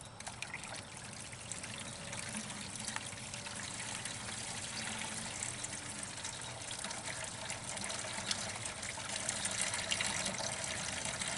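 Flush water from a toilet running out of the open end of a sewer drain pipe and trickling into a pit. It starts suddenly and grows gradually louder.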